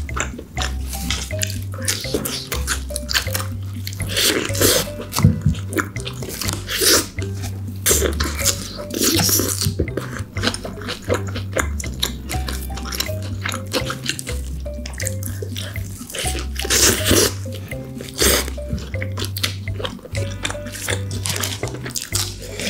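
Background music with a steady stepping bass line, under close-miked eating sounds: the paper burger wrapper rustling and crinkling, and wet biting and chewing of a hamburger in repeated loud bursts.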